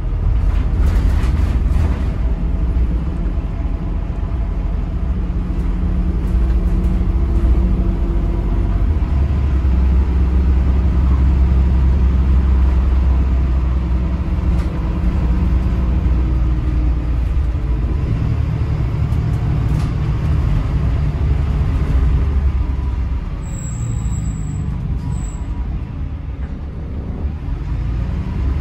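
Interior sound of a Volvo B8RLE single-deck bus under way: the rear-mounted six-cylinder diesel engine running with road and drivetrain noise. The engine note swells through the middle, changes pitch a few times as the bus accelerates and shifts gear, then eases off near the end.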